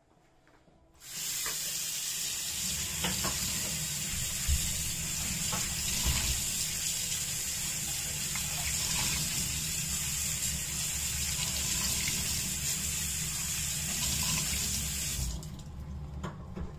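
Kitchen faucet running in a steady stream onto a microfiber cloth that is being rinsed and rubbed clean over a stainless steel sink; the water starts about a second in and shuts off near the end.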